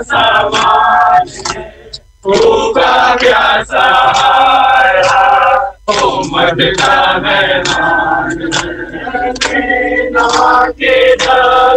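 Crowd of men chanting a Muharram mourning lament (noha) in unison, in long phrases broken by short pauses about two and six seconds in.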